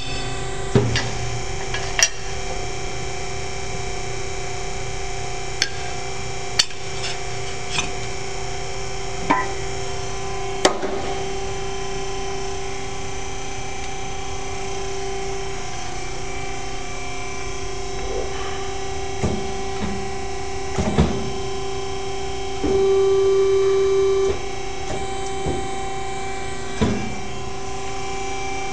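Geka 50-tonne hydraulic ironworker running, its pump motor giving a steady hum with a clear tone, broken by scattered sharp clicks and knocks of steel and tooling being handled. About two-thirds of the way through, the hum grows louder for about a second and a half.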